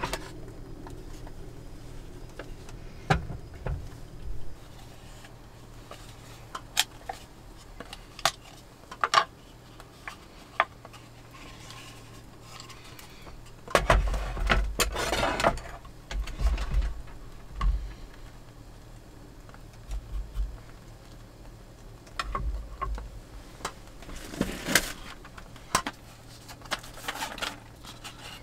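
A wooden cutting board and a kitchen knife being handled and set down on a wooden table: scattered light clicks and knocks of wood and metal, with low thumps and a longer scraping rustle about halfway through. A faint steady low hum runs underneath.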